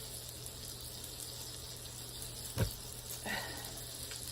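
T-bone steak sizzling in a hot pan, a steady faint hiss. A single sharp knock comes about two and a half seconds in, followed by a brief light clatter.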